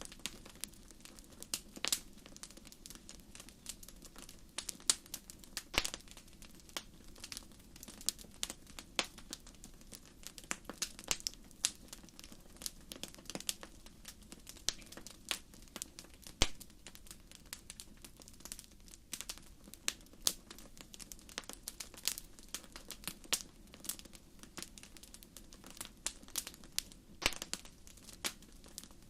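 Wood fire in a fireplace crackling: irregular sharp pops and snaps over a faint steady low background, with one louder pop about halfway through.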